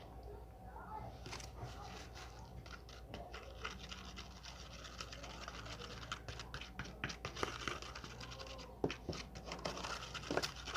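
Scratching and small clicks from objects being handled, starting about a second in and growing busier toward the end.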